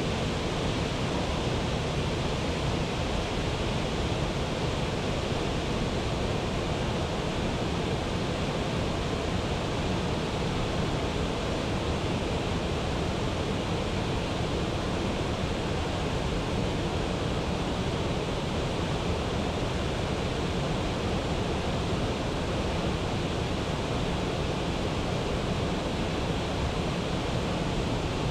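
Steady rushing of a waterfall: an even, unbroken wash of falling water that holds level throughout.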